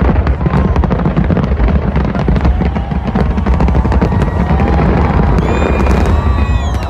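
Dense, continuous fireworks: rapid bangs and crackling over a low rumble, with whistling fireworks gliding up and down in pitch from about five seconds in.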